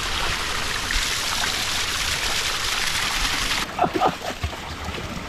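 Steady rush of running water, like a stream, that cuts off abruptly about three and a half seconds in, leaving a quieter background with a few brief faint sounds.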